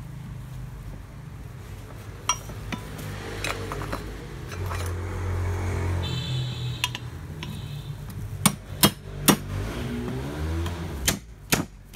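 Metal tools knocking and clinking on the housing of a rotary hammer drill being taken apart, with three hard strikes about eight and a half seconds in and a few more near the end.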